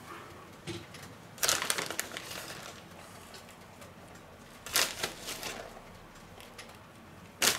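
Plastic bag of grated cheese crinkling as it is handled and shaken out by hand: three short rustles, about a second and a half in, about five seconds in, and just before the end.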